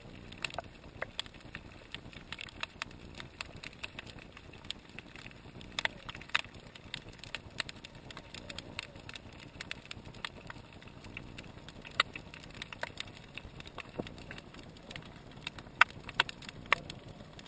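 Underwater reef crackle: irregular sharp clicks and snaps over a low hiss, the sound of snapping shrimp, with a few louder snaps near the end.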